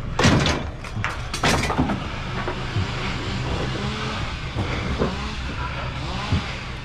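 Truck engine idling steadily, with two loud metal clanks in the first two seconds as scrap metal is thrown into the truck bed.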